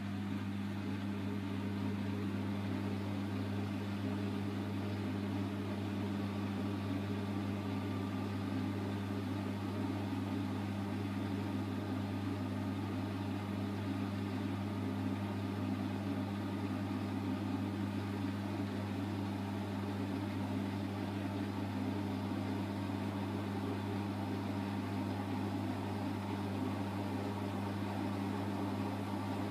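Bosch WAY32742 front-loading washing machine in its Easy-care wash, the drum turning a wet tablecloth through water. A steady low hum runs throughout, with a faint motor whine.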